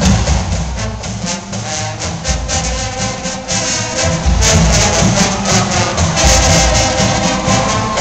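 School pep band of brass and drums playing, the drums keeping a steady beat and the horns coming in louder about halfway through.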